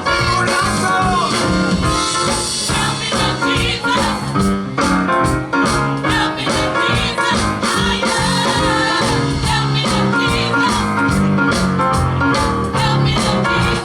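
Gospel music played live: a group singing over a band with a steady drum beat.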